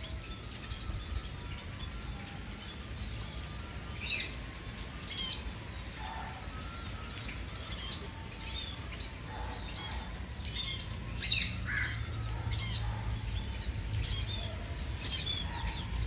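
Scaly-breasted munias (spice finches) giving short, high chirping calls at irregular intervals, with louder calls about four seconds in and about eleven seconds in, over a steady low rumble.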